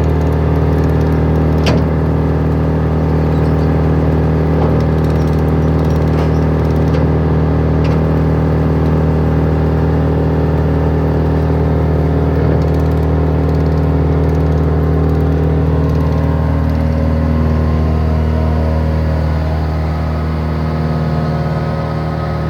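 Hussman H8Z wood chipper's engine running steadily at a constant speed, with a few faint clicks and a slight drop in level near the end.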